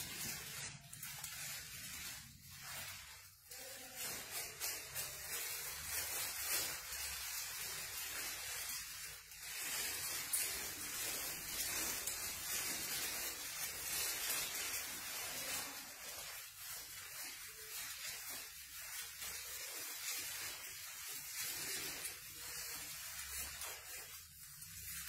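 Rustling and rubbing of a plastic PPE gown and gloves as they are peeled off and handled, a continuous crinkling with irregular louder scrapes.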